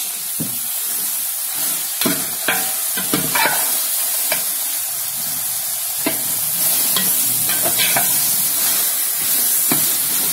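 A metal spoon stirring and scraping chicken-and-pea keema in a metal pot as it fries, with irregular clinks and scrapes against the pot over a steady sizzling hiss.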